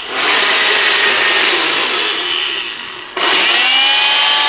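Electric blender running hard, mixing a piña colada. It is pulsed: the motor drops out briefly about three seconds in, then starts again with a whine rising in pitch as it spins back up.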